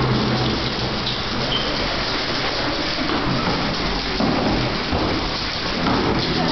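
Aerosol spray-paint cans hissing as several people spray a graffiti wall, a dense steady hiss over a low rumble.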